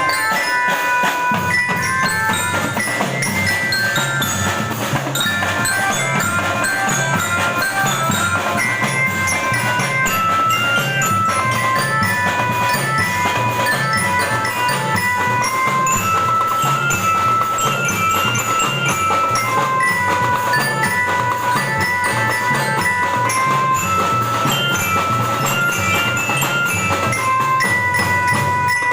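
Marching drum band playing: marching glockenspiels (bellyra) carry a melody of ringing notes over a steady, even drum beat.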